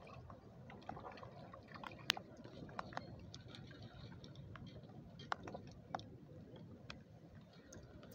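Faint irregular clicks and small wet splashes as a hooked trout is brought in and landed at the bank, over a low outdoor hush.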